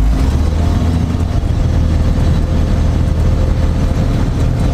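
Ikarus C42 microlight's engine idling steadily as a low drone, freshly started from cold after the aircraft has been sitting.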